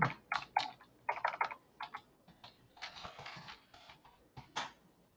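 Computer keyboard typing: a quick, irregular run of key clicks as a short terminal command is entered.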